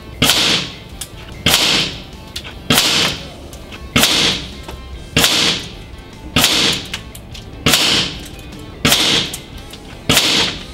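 Nine sharp air-rifle shots from a shrouded .22 PCP rifle, evenly spaced about a second and a quarter apart, each dying away within half a second, over background music.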